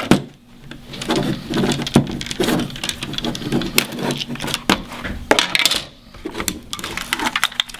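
Plastic casing of a security control panel being handled and pried open: irregular clicks, taps and rustling, with one sharper knock about two seconds in.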